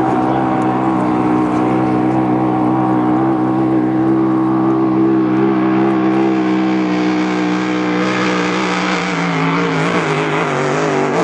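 Grand Prix hydroplane's racing engine running hard at a steady pitch, which drops a little in the last few seconds as a hiss rises over it.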